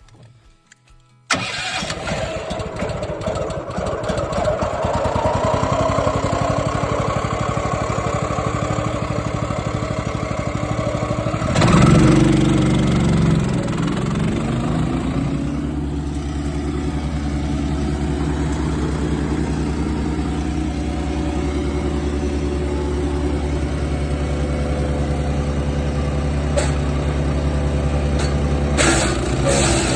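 Small gasoline engines running: one starts abruptly about a second in with a slowly rising pitch, and near the middle a louder burst gives way to a steady, lower engine note.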